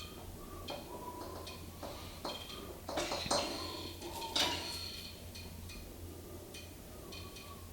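Caulking gun clicking and clinking while a bead of silicone is run around a grab-bar escutcheon: a string of light metallic clicks, with a few louder clanks around three to four and a half seconds in.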